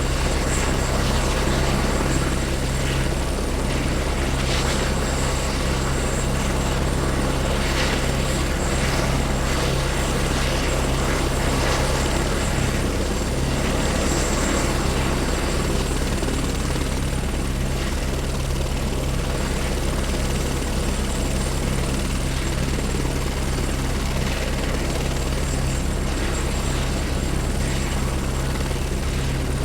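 Helicopter running steadily at speed: a dense, even rotor and engine rumble with a thin, steady high whine over it.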